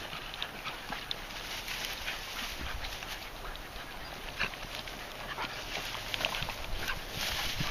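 Beagles giving short, scattered whines and yips as they search dry brush for rabbit scent.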